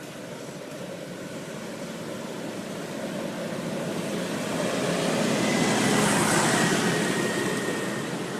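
A vehicle passing close by: a broad rushing noise that builds, peaks about six seconds in, then fades.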